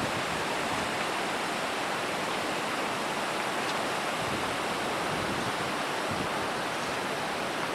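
Steady rush of fast-flowing water, an even hiss that holds level without change.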